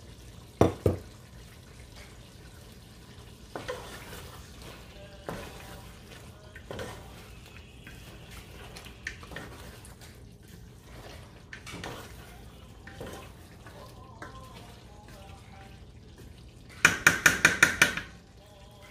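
A spoon stirring a curry in a cooking pot, knocking against the pan now and then, with two sharp clinks about a second in. Near the end comes a quick run of about seven sharp taps of the spoon on the pot.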